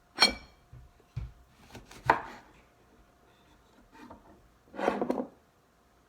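Kitchen handling sounds: a sharp ringing clink of a utensil against a dish just after the start, then a few soft knocks, and a short scraping sound about five seconds in.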